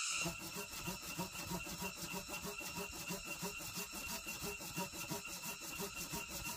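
Hand saw cutting through wood with quick, even strokes, about four a second.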